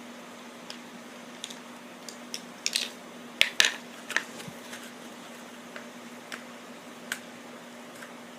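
Plastic parts of a toy helicopter being handled during disassembly: scattered clicks and taps, busiest and loudest about three to four seconds in, over a steady low hum.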